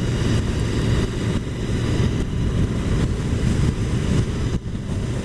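Strong gusting wind buffeting the microphone of a motorcycle rider's action camera, a dense low noise that swells and dips unevenly, mixed with the motorcycle's engine and road noise. It eases briefly about four and a half seconds in.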